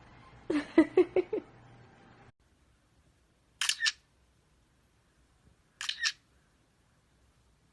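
A parrot gives a quick run of short chirpy calls. After a cut come two sharp camera-shutter-like double clicks, about two seconds apart.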